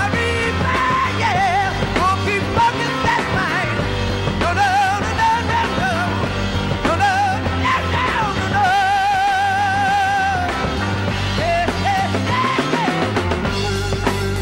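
Hard rock band playing: electric guitar, electric bass and drum kit, with the lead singer's high vocal wailing over it in wavering vibrato, one note held for about two seconds roughly nine seconds in.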